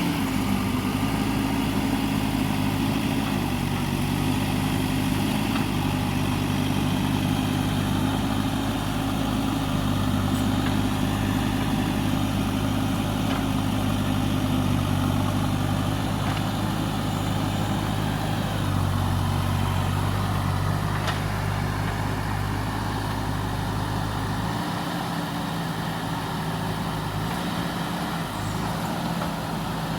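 Diesel engine of a JCB backhoe loader running steadily, its pitch shifting slightly now and then; about 25 seconds in, its deepest note drops away.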